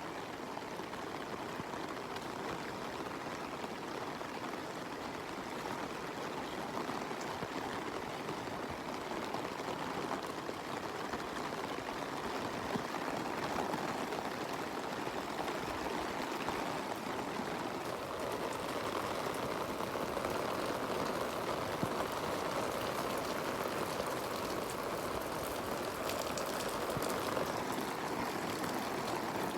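Steady rushing noise of heavy rain and running water, growing a little louder about halfway through.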